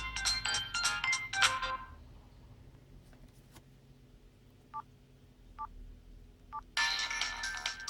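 Hitachi W43H mobile phone's speaker playing a ringtone melody of quick bright notes that stops about two seconds in. Three short keypad beeps follow, a little under a second apart, and another ringtone starts near the end.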